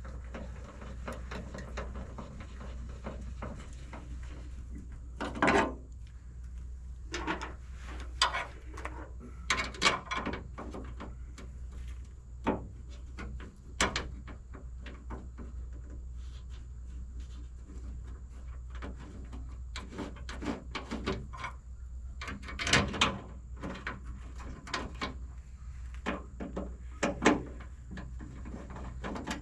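Scattered clicks, knocks and short scrapes of hand work on a pickup's tailgate, as parts and fasteners are handled while a backup camera is fitted, over a steady low hum.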